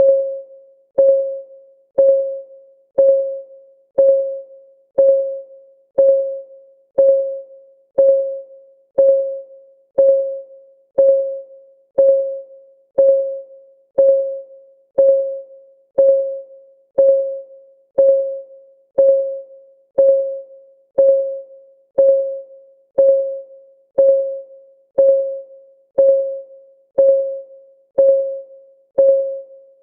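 Countdown timer's ticking sound: one short, clean pitched tick every second, each starting sharply and fading within about half a second, steady and even.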